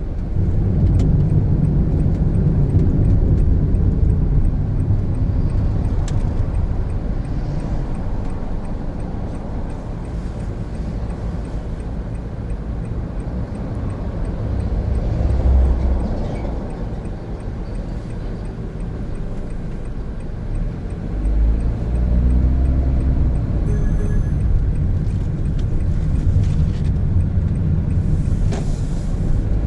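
Cabin noise of a 2017 Honda N-BOX Custom with its 660 cc turbo engine while driving: a steady low road and engine rumble that eases off for a stretch in the middle, then builds again about three quarters of the way through with rising engine tones as the car accelerates.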